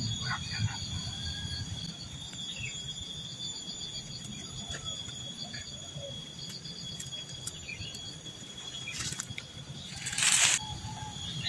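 Forest insects chirring steadily in several high-pitched layers, one of them pulsing. About ten seconds in comes a short, loud burst of rustling noise.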